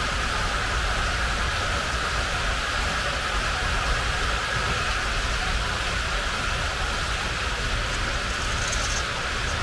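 Steady running noise of an H0-scale model train on the track, even throughout with no clicks or pauses.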